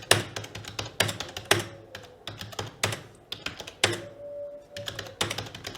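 Typing on a Logitech K480 Bluetooth keyboard: its tactile keys clack noisily in irregular strokes, with a short pause about four seconds in.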